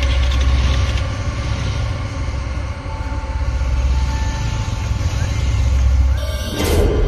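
Motorcycle engine running as the bike rides off, a steady low rumble. A brief rushing noise comes near the end.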